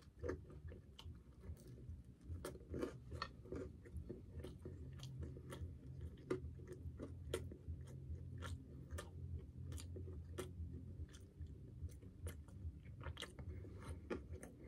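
A person chewing a mouthful of wood-fired sourdough pizza, with irregular soft crunches and mouth clicks. A faint steady low hum runs underneath.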